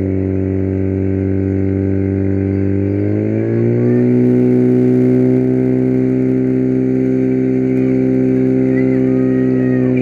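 Portable fire pump engine running flat out during a fire-sport attack, a steady high-revving engine note that climbs in pitch about three to four seconds in and then holds as the hoses deliver water to the targets.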